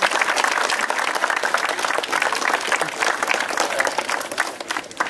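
A crowd of young people applauding, many hands clapping at once, dying away near the end.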